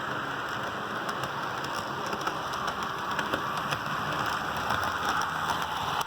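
HO-scale model train running on the track: a steady whirring rattle from its motor and wheels, with faint clicks, that drops off suddenly at the end.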